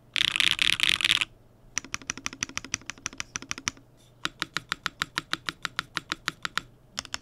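Typing on a Tess65 mechanical keyboard with clacky Keygeek Kyubi linear switches in a top-mounted aluminum plate with no foam. A dense flurry of keystrokes lasts about a second. Two fast, even runs of single key presses follow, with a short pause between them.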